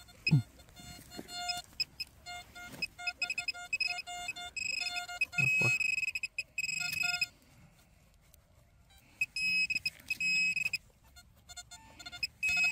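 Metal detector signal tones: irregular beeps at a lower and a higher steady pitch switching on and off, with longer held tones about five seconds in and again around ten seconds, as the coil is worked over a non-ferrous target very close by.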